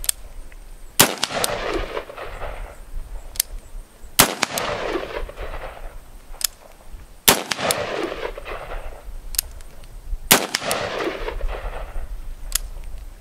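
AR-15 rifle firing four single shots, one about every three seconds. Each is a sharp crack with a rolling echo that lasts about a second and a half. Fainter sharp snaps fall between the shots.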